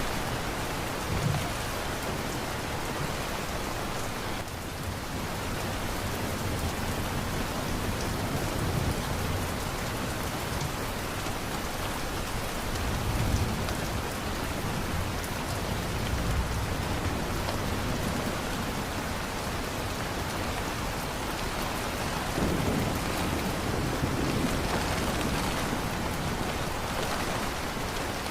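Steady heavy rain falling, with slow low rolls of thunder swelling under it several times, the strongest about halfway through and again near the end.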